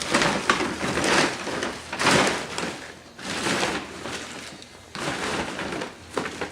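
Wrapping paper rustling and crinkling in several irregular bursts as it is handled and crumpled.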